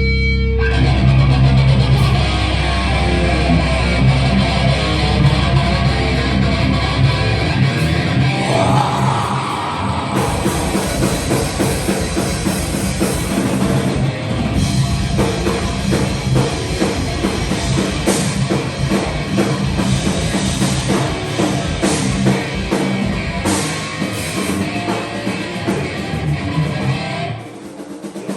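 Heavy metal band playing live through the PA during a sound check: distorted guitars and bass with a drum kit. A low note is held for the first several seconds, then the full band plays hard and stops abruptly near the end.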